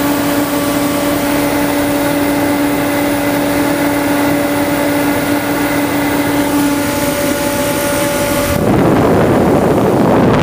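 Forced-air kerosene heater running with its freshly regapped spark plug: a steady motor hum with a rushing noise under it. About eight and a half seconds in, a louder rushing noise takes over and stops abruptly at the end.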